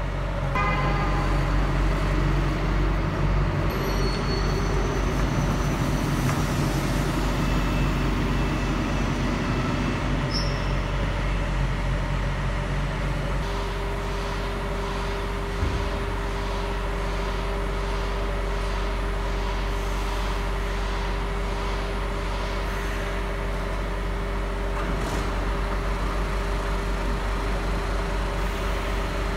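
Steady low vehicle hum of buses in a bus garage. A steady whine comes in about halfway through, with one brief knock shortly after.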